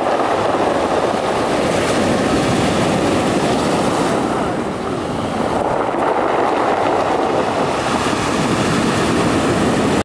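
Sea surf breaking and washing up a pebble beach, the water rushing over and rolling the stones. The wash eases a little about halfway through and swells again as the next wave comes in.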